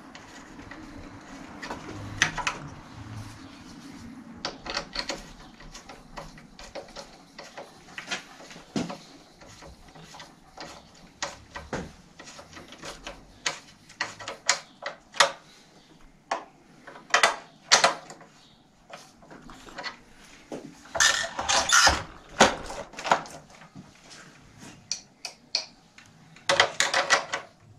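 Irregular metallic clicks and knocks from hand tools working a bicycle's rear axle nuts and chain tensioner as the chain is tightened, with denser runs of quick clicks a little past halfway and again near the end.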